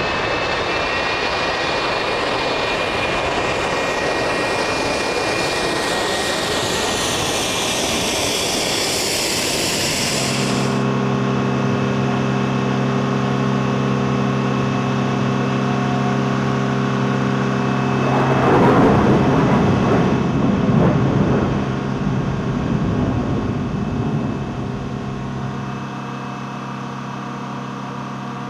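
Jet aircraft engine noise with a whine sweeping in pitch, cutting off abruptly about ten seconds in to a steady low engine hum, with a louder rush of engine noise partway through.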